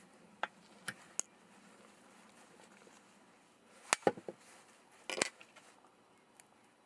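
A few sharp clicks and clinks of small hard parts being handled on a workbench: three single clicks in the first second or so, a quick clatter of several clicks about four seconds in, and a short, noisier clatter about five seconds in.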